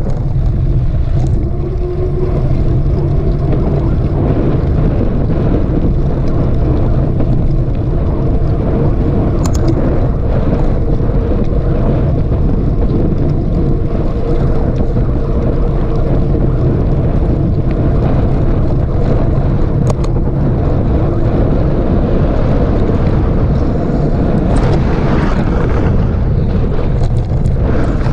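Steady wind rushing over the microphone and the rolling rumble of a mountain bike ridden along a dirt trail, with a few sharp ticks.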